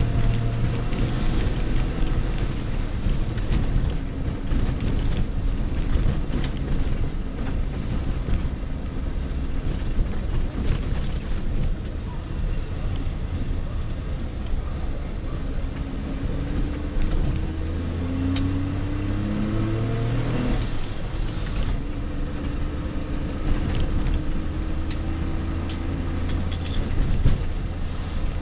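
The 1966 DKW-Vemag Belcar's three-cylinder two-stroke engine, heard from inside the cabin while driving, running with a steady drone. About two-thirds of the way through its pitch climbs as it revs up, then drops away sharply before settling back to a steady pull.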